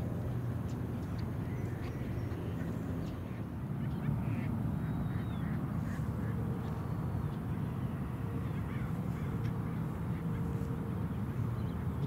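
Ducks quacking, with short calls scattered throughout over a steady low background rumble.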